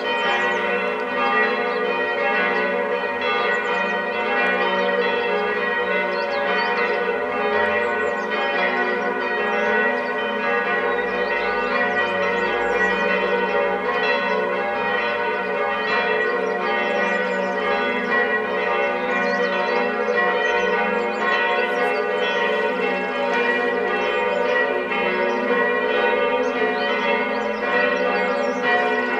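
Church bells ringing continuously, several bells sounding together in an unbroken wash of overlapping tones.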